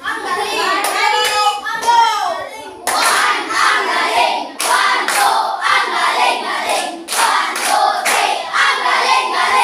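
A class of children singing together while clapping their hands in a rhythm of a few claps a second, with a short break about three seconds in.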